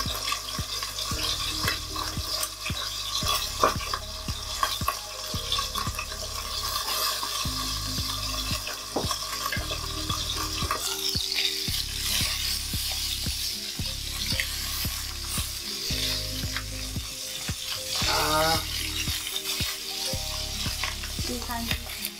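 Chicken thighs frying skin-side down in oil in a cast-iron skillet over medium-low heat, a steady sizzle with small crackles and spatters.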